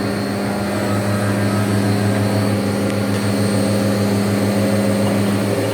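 Haas VF-2SS CNC vertical mill cutting aluminium with a 1-inch two-flute Walter end mill at 12,000 RPM: a loud, steady, pitched machining tone. A lower pulsing hum joins about a second in, and the main tone drops out just before the end.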